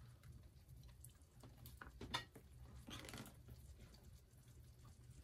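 Faint sounds of a serving spoon moving wet, stewed chicken and potato, over a low steady hum: a light click about two seconds in and a short soft squelch about three seconds in.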